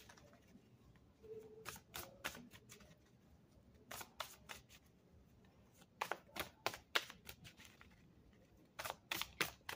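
Ethereal Visions tarot deck being shuffled by hand, with cards faintly snapping and slapping against each other in four short clusters and quiet pauses between them.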